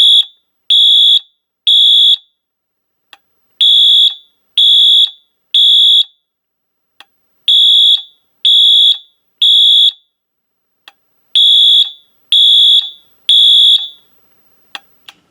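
Wheelock AS fire alarm horn strobe sounding the temporal-3 (code 3) evacuation pattern on its low-volume setting: three high-pitched beeps of about half a second each, then a pause, four rounds in all. Faint clicks fall between the rounds, and two sharper clicks come near the end after the horn stops.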